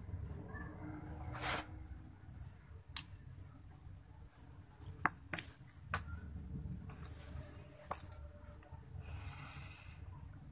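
Hands handling thin craft wire and pearl beads on a tabletop: scattered small clicks and rustles, with a brief hiss near the end, over a low steady hum.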